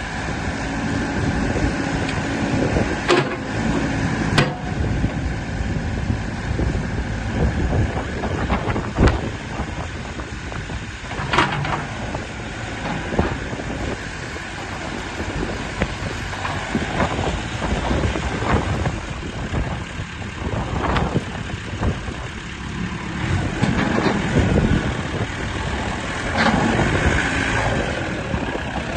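JCB 3CX backhoe loader's diesel engine running steadily, with a handful of sharp knocks or clanks over it.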